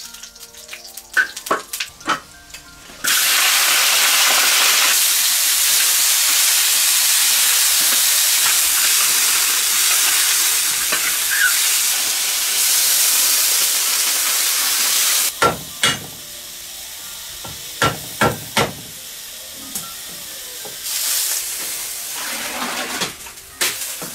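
Chopped chicken tipped into hot oil in a large iron wok: a sudden loud sizzle starts about three seconds in and holds for about twelve seconds. Then a metal spatula knocks and scrapes against the wok as the meat is stirred, over a quieter sizzle.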